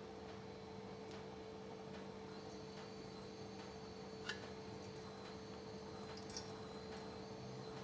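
Faint steady hum, with a few soft clicks scattered through it and a slightly louder click about four seconds in.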